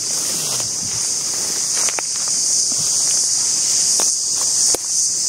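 A loud, steady, high-pitched insect chorus filling the forest, with a few sharp crackles and snaps from footsteps in the undergrowth.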